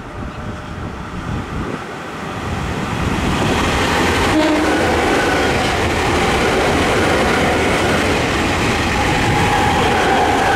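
Nankai 6300 series electric commuter train running past close by, its wheels rolling and clattering on the rails. The noise grows louder about three seconds in as the cars come alongside, and a few short steady tones sound over it.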